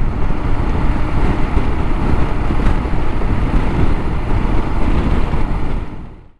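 Wind rushing over the microphone on a moving Royal Enfield Himalayan motorcycle, with the bike's engine and road noise underneath. It fades out near the end.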